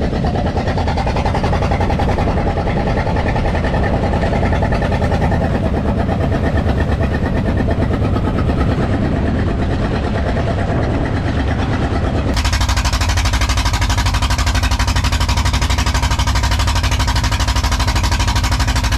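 An engine running steadily, with a fast, even throb. Its sound changes abruptly about twelve seconds in, turning hissier in the highs and weaker in the middle.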